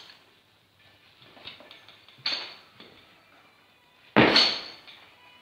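Thuds and clanks of a loaded barbell and a lifter's feet on a weightlifting platform: a sharp knock about two seconds in, then a much louder, heavy thud a little after four seconds.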